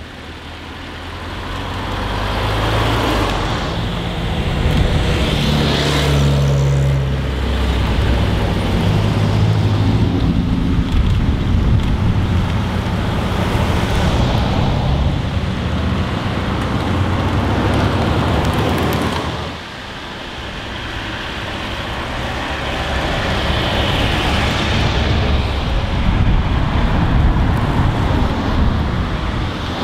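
Vintage and modern cars driving past one after another on an asphalt road, each one's engine and tyre noise swelling as it nears and fading as it goes. The sound drops off abruptly about twenty seconds in, then builds again with the next car.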